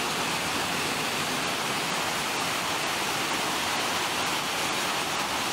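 Muddy floodwater pouring down a staircase, making a steady, unbroken rushing noise.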